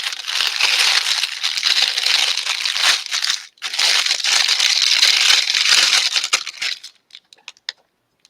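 Plastic packaging bag crinkling as it is handled, a dense crackle. It breaks off briefly about three and a half seconds in, resumes, then thins to a few faint crackles and stops near the end.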